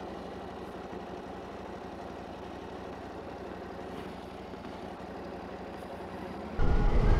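Motorcycle engine idling steadily. About half a second before the end it gives way abruptly to much louder rumbling wind noise on the microphone, as of riding at speed.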